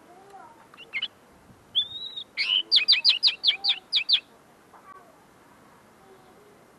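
Common linnet singing: a couple of short notes, a rising-then-falling whistle, then a quick run of about eight sharp, clipped notes. It is a caged bird whose song is still being refined, its notes not yet fully clear.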